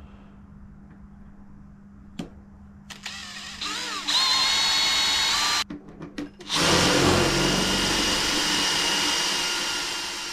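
DeWalt cordless drill drilling a 6.3 mm (quarter-inch) hole through an aluminium section: a first run about three seconds in, its whine rising as the motor speeds up, stops after a couple of seconds; a few short trigger blips follow, then a longer, louder run as the bit cuts through the metal, stopping at the very end.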